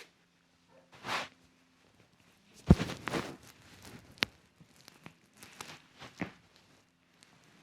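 Massage hand sounds: hands brushing and rubbing over skin and hair in short swishes, with one loud sharp slap about three seconds in and a crisp click a little after.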